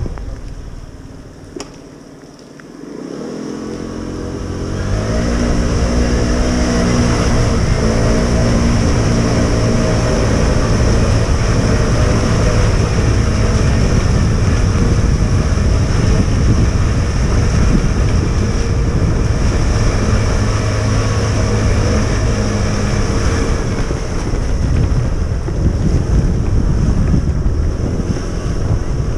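Riding over wet cobblestones: wind buffeting the microphone and a rumbling rolling noise, quieter at first and getting louder about four seconds in, with a humming tone that rises in steps as speed builds.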